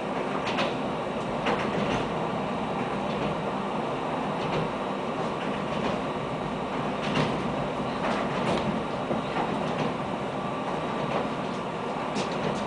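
Steady running noise of the 630M diesel railbus heard from inside the passenger cabin, with a few scattered short clicks and knocks.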